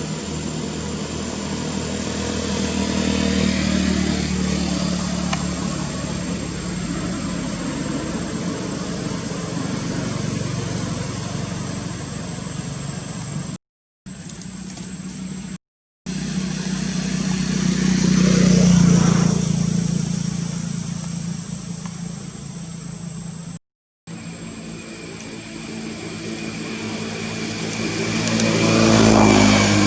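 Motor vehicle engines passing by, the engine noise swelling to a peak and fading twice. The sound cuts out completely for a moment three times.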